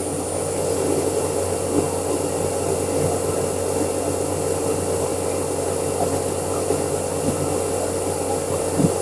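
Hooded hair dryer running steadily on its warm setting: an even rush of blown air with a steady low hum underneath.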